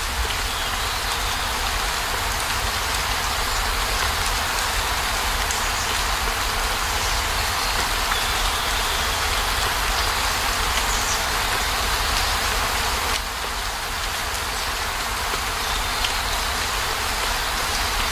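Heavy rain falling steadily, a dense, even hiss with a low rumble underneath.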